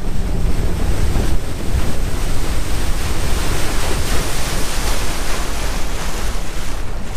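Steady rush of wind buffeting the microphone and water spraying past the hull of a bass boat running at speed across a lake.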